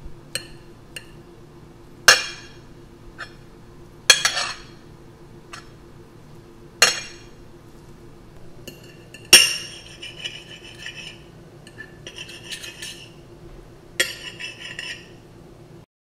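Metal cutlery clinking against a plate. Single sharp clinks are spaced out over the first several seconds. From about nine seconds in come clusters of rattling, scraping clinks, and the sound cuts off suddenly just before the end.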